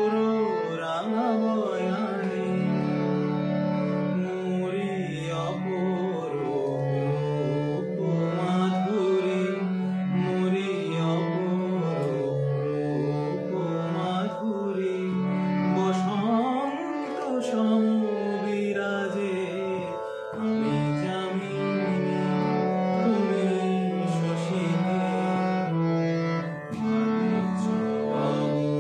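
A man singing a slow song, his voice bending and wavering through the melody over steady held accompanying notes.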